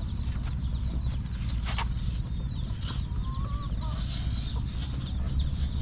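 Baby chickens peeping: many short, high chirps in quick succession, over a steady low rumble.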